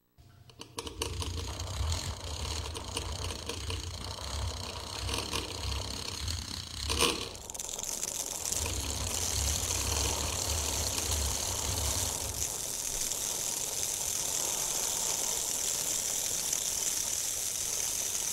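Homemade foley vehicle sound effects: a low engine-like noise with a hiss over it. There is a brief, louder burst about seven seconds in, and from about eight seconds in the hiss becomes steadier.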